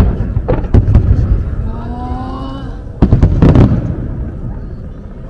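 Aerial fireworks shells bursting overhead: a few sharp bangs in the first second, then a rapid cluster of booming bursts about three seconds in, each followed by a low rumbling echo.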